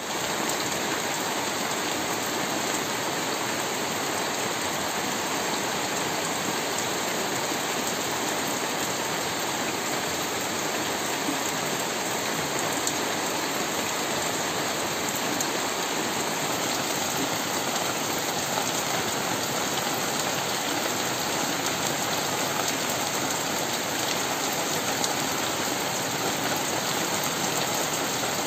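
Steady rain falling onto a plastic sheet, wood and puddled muddy ground.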